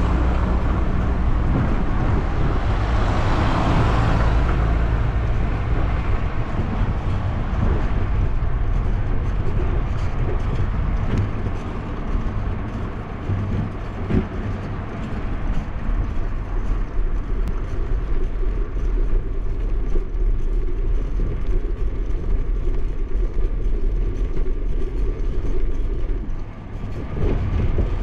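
A car passes close by in the first few seconds, its engine and tyre noise swelling and then fading away. After that comes a steady low rumble of wind and road noise on a bicycle-mounted action camera's microphone, with faint scattered ticks.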